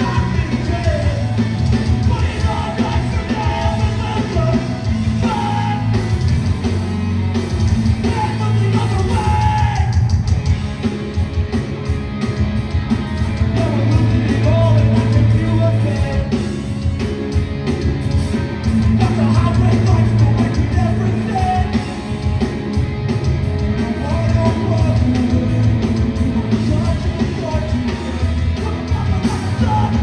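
Hardcore band playing live: loud distorted guitars, bass and drums with yelled vocals.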